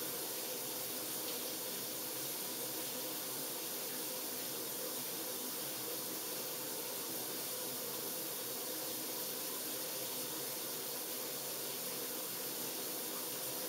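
Shower running: a steady, unbroken spray of water.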